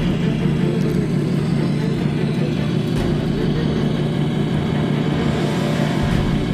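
A steady low motor drone that holds even throughout.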